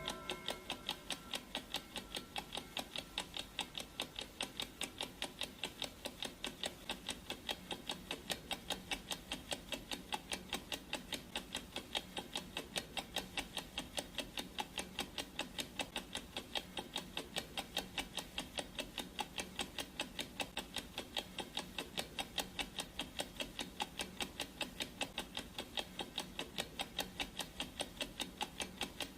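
Clock ticking sound effect of a countdown timer: sharp, evenly spaced ticks, several a second, keeping a steady rhythm.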